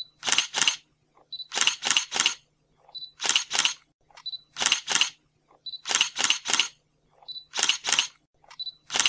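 Camera shutter sound, about seven shots at an even pace of roughly one every second and a half. Each shot is a faint high beep followed by a double click-clack.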